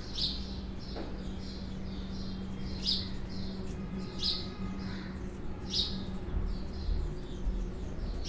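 Marker squeaking on a whiteboard as words are written: a run of short, high squeaks, the louder ones coming every second or so.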